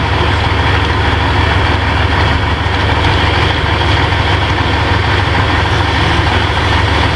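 A heavy engine or machinery drone running steadily and loudly, low-pitched, with an even noise over it and no change in level.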